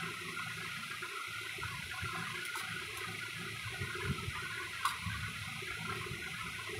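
Steel spoon stirring chopped onion with turmeric and salt in a steel bowl, giving a few light clinks, over a steady rushing noise like running water.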